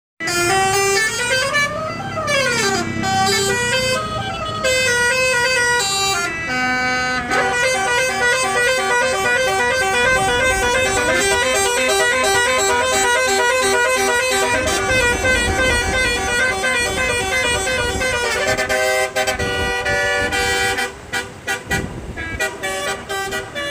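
A bus's 24-note basuri telolet horn playing a tune, loud. Sliding, siren-like notes rise and fall in the first few seconds, then many notes sound together in a fast run, turning choppier near the end.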